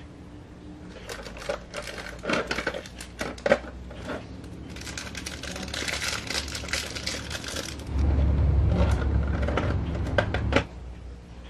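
Small plastic figure parts clicking and tapping together as a Nendoroid is handled, then a small plastic bag crinkling. About eight seconds in, a louder low rumbling handling noise starts as a hand presses over the clear plastic blister tray, stopping shortly before the end.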